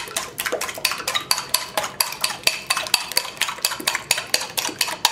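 A fork beating eggs in a small bowl: quick, regular clicks of the fork against the bowl, about five a second, as the yolks are broken and whisked.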